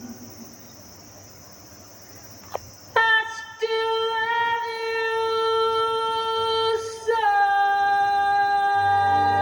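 Recorded music played through an EL84 single-ended valve amplifier. It opens with a quiet pause and a single click, then from about three seconds in come long held notes, with the note changing about seven seconds in.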